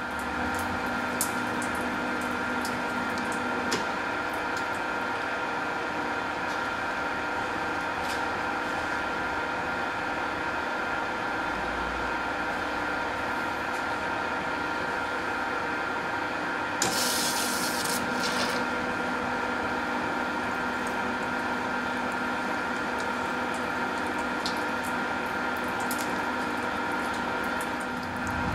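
Engine lathe running at low spindle speed, a steady hum and gear whine with several held tones, while a carbide threading insert cuts a 1.5 mm pitch thread. A short hiss about seventeen seconds in.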